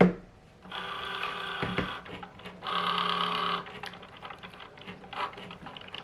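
Cricut Joy cutting machine's motors whining as it drives the smart vinyl through a cut, in two stretches of about a second each, followed by shorter, quieter moves. There is a sharp click right at the start.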